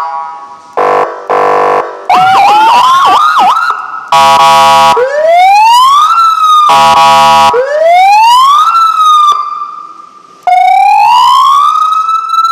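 Sirine S6 Double Sound 200-watt electronic vehicle siren cycling through its tones: two short buzzing horn blasts, then a fast warbling yelp with two tones sounding at once. Short horn blasts alternate with rising-and-falling wail sweeps, and near the end it settles into a long wail that rises and holds.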